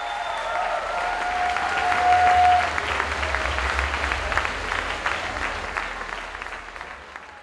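Audience applauding after a talk, with one long held pitched call over the clapping during the first three seconds. The applause fades out near the end.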